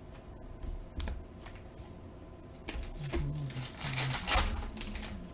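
Trading cards being handled and flipped through: light clicks and short papery rustles, busiest from about three to four and a half seconds in.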